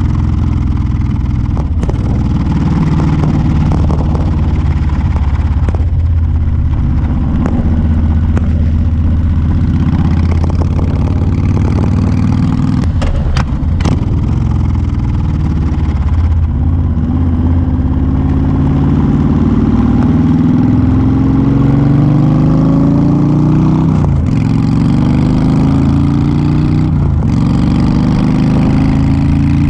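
Honda Fury's V-twin engine, fitted with a Cobra exhaust, running under way at a steady cruise. About halfway through it pulls harder and the pitch climbs, then drops sharply twice near the end as it shifts up through the gears, with wind noise under it.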